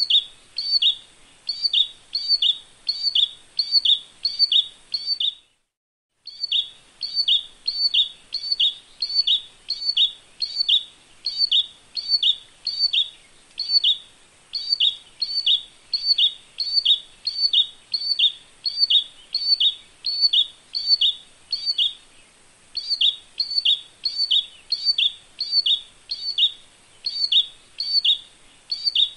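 Olive-backed tailorbird singing: a long run of sharp, evenly repeated two-part chirps, about two a second. All sound cuts out completely for about a second around five seconds in, and the run pauses briefly twice later on. A faint steady high hiss sits behind the song.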